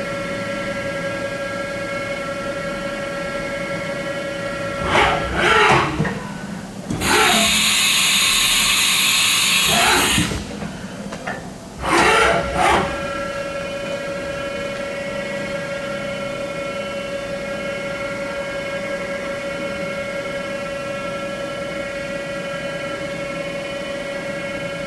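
Haas VF2D vertical machining center running a program: a steady spindle whine. About five seconds in the whine glides down in pitch, a loud hiss follows for about three seconds, and then the whine glides back up to its steady pitch at about twelve seconds and runs on.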